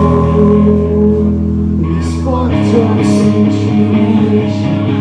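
A pop-punk band playing live, loud: held electric-guitar chords with some singing. A deep low note drops out about halfway, and cymbal crashes come in from about two seconds in.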